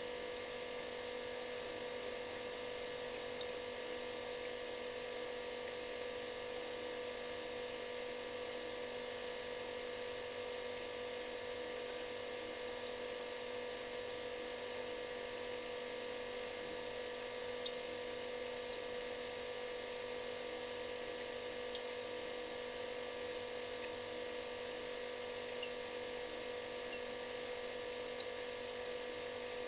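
Refrigerator running with a steady electric buzz: one strong hum tone with several fainter tones over an even hiss, unchanging throughout.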